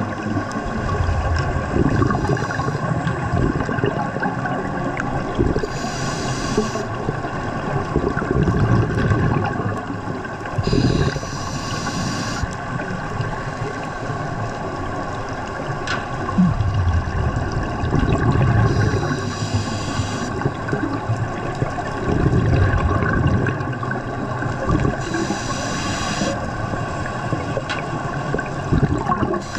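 A scuba diver breathing through a regulator underwater: a hissing inhale about every six or seven seconds, four in all, each followed by a rumbling, gurgling rush of exhaled bubbles. A steady hum runs underneath.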